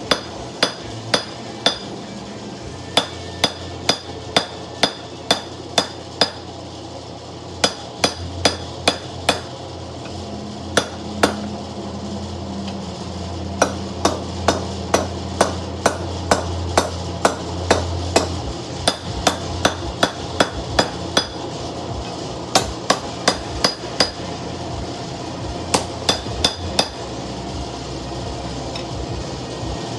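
Hand hammer striking hot steel on a small post anvil to forge a knife blade: sharp metallic blows at about two to three a second, in runs broken by short pauses. A steady low hum runs beneath, louder through the middle.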